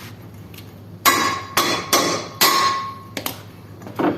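Four sharp strikes on the metal of a window AC fan motor, each leaving a brief ringing tone, followed by two lighter knocks, as the motor is knocked apart to free its rotor.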